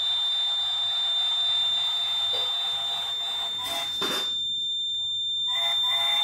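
Piezo buzzer of a model level-crossing gate giving one steady high-pitched beep, the warning that the barrier is down while the train passes. Under it the toy train's motor and wheels whirr on the track, cutting out briefly about four to five seconds in.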